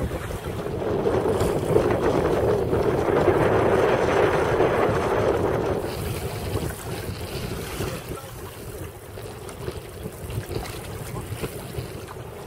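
Wind buffeting the microphone and choppy sea water splashing against a sea kayak. It is loudest in the first half and eases off after about six seconds.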